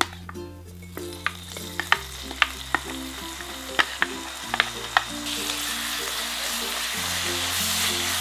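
Sliced abalone frying in hot oil in a pot. Sharp pops and crackles as the pieces go in, then a steady sizzle that swells about five seconds in as they are stirred with a wooden spoon.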